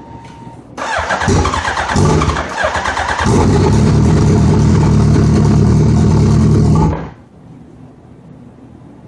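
Suzuki Hayabusa inline-four being cranked to start. It comes in about a second in with uneven pulses, turns heavier and steadier about three seconds in, and cuts off suddenly about seven seconds in. The bike is hard to start, and the owner reports that fuel pressure drops as it spins over.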